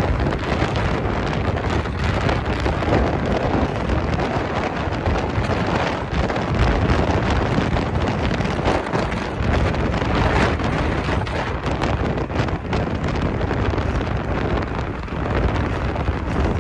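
Wind buffeting the microphone: a steady, fairly loud rushing noise with irregular gusty flutters.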